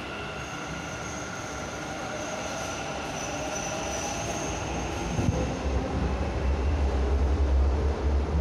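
Metro train moving along the platform: a steady electric whine with several high tones over running noise, growing louder. About five seconds in, a heavy low rumble takes over.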